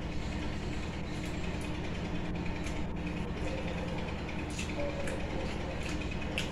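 Eating rice by hand: scattered soft clicks and smacks of fingers working rice in a bowl and of chewing, over a steady low background hum.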